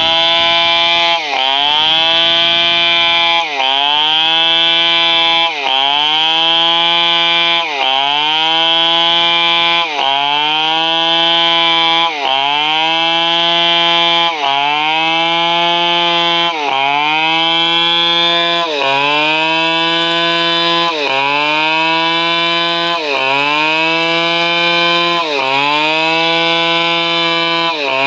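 Stihl chainsaw engine running at high revs, its pitch dipping sharply and climbing back about every two seconds, over and over.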